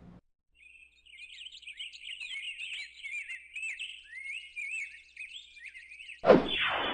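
A bird chirping in quick, varied high whistles and trills. Near the end a loud sweep falling sharply in pitch cuts in over it.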